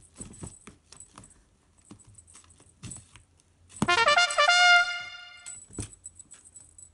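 A comic sound effect: a quick run of rising brass-like notes, like a trumpet, ending on a held note, coming in about four seconds in and lasting about a second and a half. Faint scattered clicks come before it.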